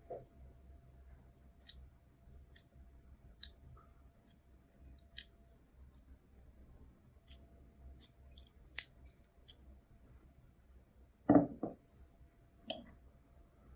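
Slime being handled and worked: scattered sharp little clicks and pops at irregular intervals, with a couple of dull thuds near the end.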